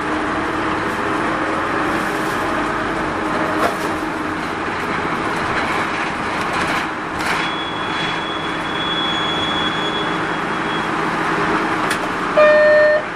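Mitsubishi Fuso Rosa minibus's diesel engine running steadily, heard from inside the bus, with a thin high whine for a few seconds midway and a short electronic beep near the end.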